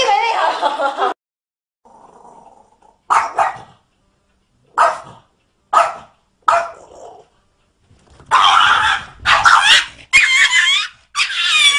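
Dog barking in separate short bursts: a few single barks, then a louder run of barks and whines near the end.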